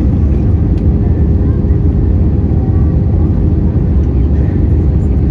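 Airbus A320 cabin noise on approach with flaps and landing gear down: a steady, loud low rumble of airflow and engines heard inside the cabin, with a faint steady hum.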